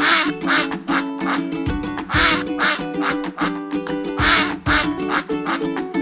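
Duck quacking in three pairs of quacks, the two in each pair about half a second apart, over background music.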